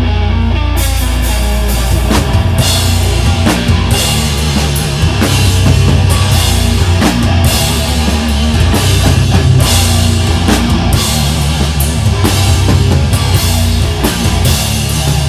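Live heavy rock band playing an instrumental passage: distorted guitars and bass over a driving drum kit with steady cymbal and snare hits.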